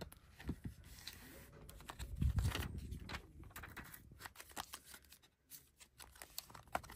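Paper and cardboard packaging being handled: scattered light rustles, taps and clicks as inserts are lifted out of a watch box, with a duller knock about two seconds in.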